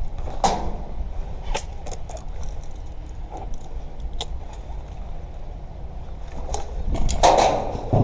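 Steady low rumble with about six sharp clicks and knocks spread through it; the loudest is a longer knock about seven seconds in.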